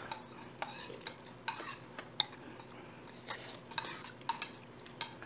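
Spoon clinking and scraping in an earthenware ttukbaegi bowl of dumpling soup while a dumpling is broken up and rice is stirred in: a dozen or so light, irregular clicks, some with a short ring.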